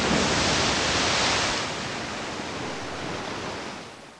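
A large ocean wave breaking: a loud rush of surf, strongest in the first second and a half, then easing and fading out near the end.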